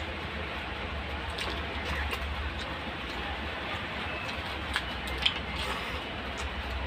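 Mouth sounds of someone eating fish and rice by hand, wet chewing and lip smacks, with two sharper smacks about five seconds in, over a steady background hiss and low hum.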